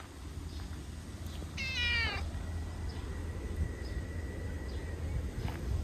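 Orange tabby cat giving one short meow that falls in pitch, about a second and a half in.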